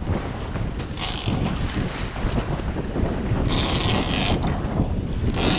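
Wind buffeting the microphone on a boat at sea, a steady rumble, with short bursts of hiss about a second in, again around three and a half seconds and near the end.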